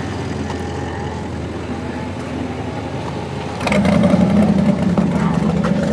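A vehicle engine running steady. About three and a half seconds in, a louder engine comes in with a steady low hum.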